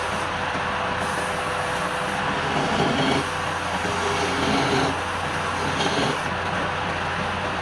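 Electric wood lathe running steadily with a constant motor hum, with three brief louder swells as the work on the spinning palm-wood bowl bites harder.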